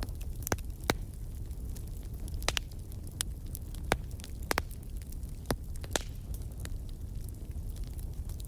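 Wood fire crackling in a fireplace: sharp irregular pops and snaps over a steady low rumble of the flames.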